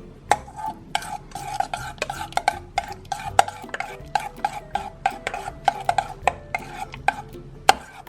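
A utensil stirring a sticky mixture of clear glue and shaving gel in a bowl, with quick, irregular scrapes and clicks against the bowl.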